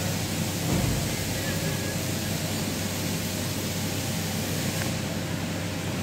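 Steady workshop background hiss and low hum, with a soft low bump about a second in as a seatbelt retractor reel is pushed into a seat back.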